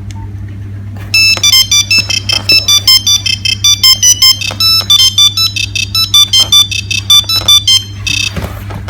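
Nokia 3610 mobile phone playing a ringtone: a quick melody of high-pitched electronic beeps that starts about a second in and stops about six seconds later.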